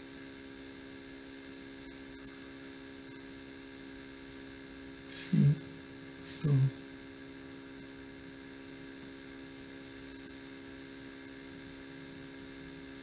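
Steady electrical mains hum under faint hiss, broken by two short, louder sounds about five and six and a half seconds in.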